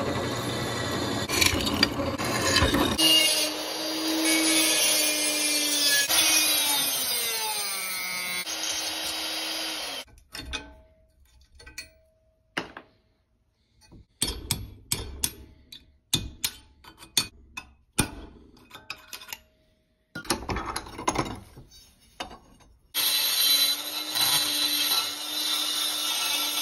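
Flex-shaft rotary tool grinding the slots cut through a steel blade held in a vise. The tool runs steadily, its pitch falls once as it slows, then it cuts in and out in short bursts in the middle, and it runs steadily again near the end.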